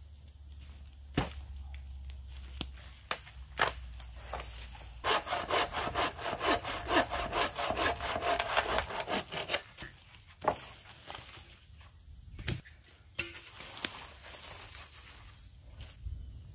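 A hand saw cutting through a dead wooden pole in a run of quick, even back-and-forth strokes for about five seconds, starting about five seconds in. A few single sharp knocks of wood come before and after.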